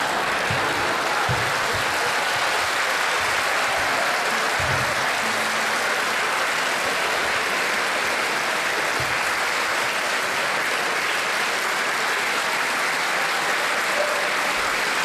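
Audience applauding steadily in a concert hall, with a few faint low thumps in the first few seconds.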